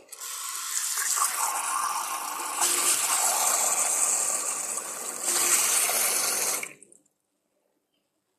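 Water running hard from a tap as something is rinsed off under it. The stream changes sound twice, and the water is shut off abruptly about seven seconds in.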